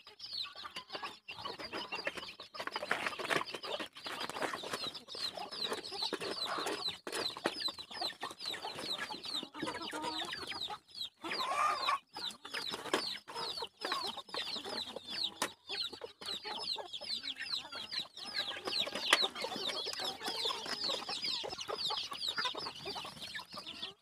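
A flock of black-meat chickens clucking and calling steadily while feeding, with many short, high, falling peeps throughout.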